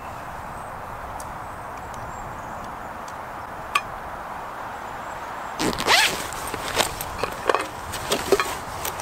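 Zip on a canvas shoulder bag being pulled in a series of short rasping strokes, starting a little past halfway, over a steady background hiss. A single light click comes a few seconds earlier.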